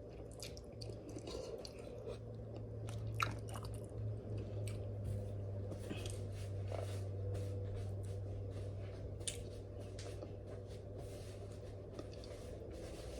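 Close-up chewing of king crab with sauce: wet mouth sounds with many short clicks and squishes, over a steady low hum.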